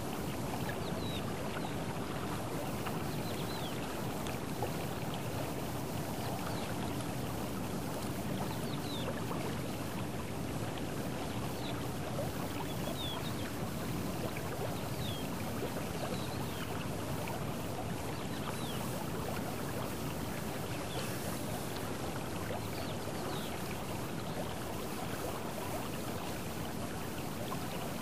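Steady rush of the River Ebro's flowing water, with faint high chirps scattered through it.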